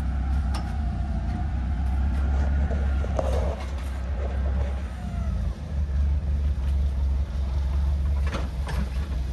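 Propane forklift engine running steadily as it lifts a small car on its forks. The engine dips briefly about halfway through and then picks up again, and there are a couple of short knocks near the end.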